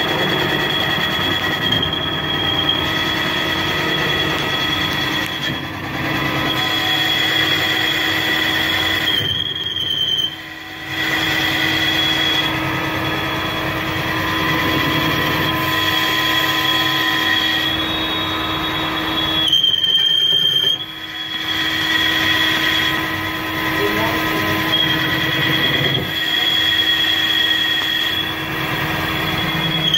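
Mazak CNC lathe turning a crankshaft: the spindle spins the crankshaft while the tool cuts, a steady machine noise with a high-pitched whine over it. Twice, about a third and two thirds of the way through, the sound briefly drops away.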